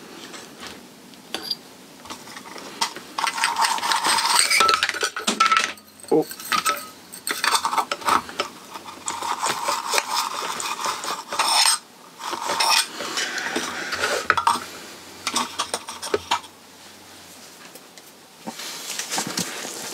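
Soldering iron tip being cleaned in a brass-wool tip cleaner: repeated bursts of scratchy metallic clinking and rustling with short pauses between them.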